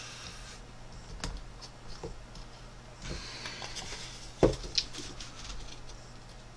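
Knife carving a wooden spoon: short scraping cuts through the wood, with a few sharp clicks and knocks, the loudest about four and a half seconds in. A faint steady hum runs underneath.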